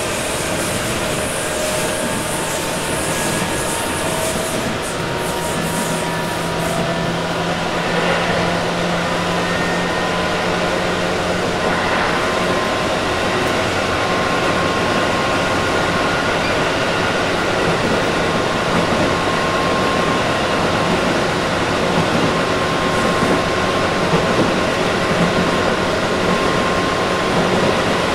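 Running sound inside a Tobu 8000 series motor car, MoHa 8266, with resistance control: a steady hum from its TM-63 traction motors, with a faint whine and wheel-on-rail noise, slowly growing louder.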